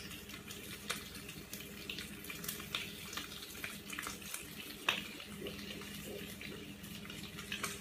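Steady background hiss with a low hum, dotted with scattered light clicks.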